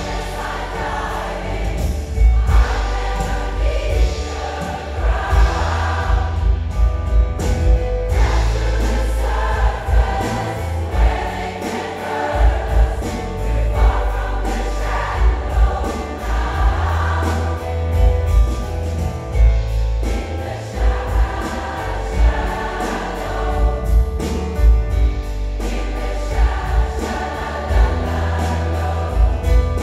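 Large mixed choir singing with piano and band accompaniment, over a steady pulsing bass beat.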